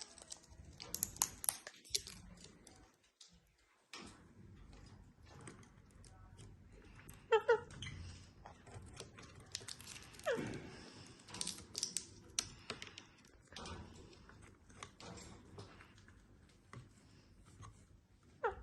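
Pet lovebirds in a small room: scattered sharp clicks and taps, with a short chirp about seven seconds in and a call that slides down in pitch about ten seconds in.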